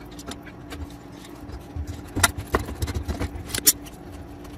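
Hands working a threaded pipe fitting loose beside a well-pump pressure switch: a few sharp clicks and knocks of the fittings and pipe, with the loudest about two seconds in and again near three and a half seconds. A faint steady hum runs underneath.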